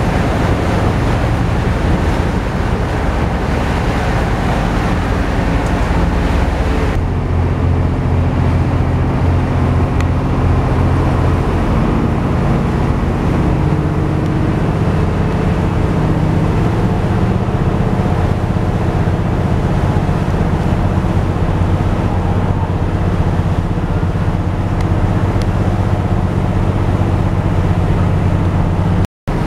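A tour boat's engine running with a steady low hum, under wind on the microphone and water rushing past the hull. A few seconds in, the wind hiss drops and the engine hum comes forward. The sound cuts out for an instant near the end.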